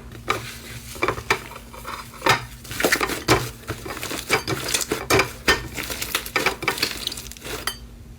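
Slime being worked and squished, giving a quick run of irregular sticky clicks and pops.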